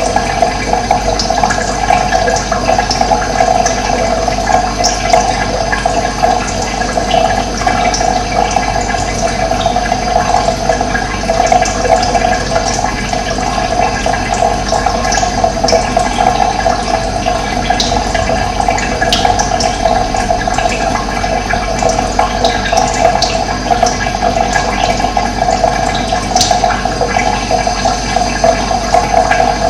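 Running water, a steady rushing sound, with brief high bird chirps here and there.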